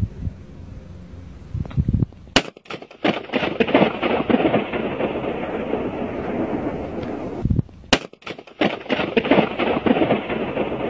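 A balloon popped inside a concrete cooling tower: a sharp bang about two and a half seconds in, then a long crackling echo that rolls on for about five seconds. A second sharp bang near the middle sets off another long echo like the first.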